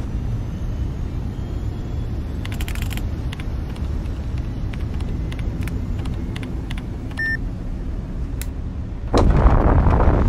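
Film sound design for a spacecraft cockpit: a steady low rumble with scattered light clicks as keys are pressed on a control keypad and a short single beep. About nine seconds in, a sudden, louder roar sets in.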